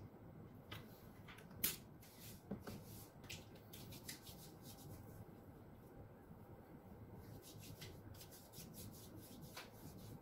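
Faint sounds of hands rubbing lotion over the skin of the arms, with scattered light clicks and taps as the plastic lotion bottle is handled and set down; the loudest click comes a little under two seconds in.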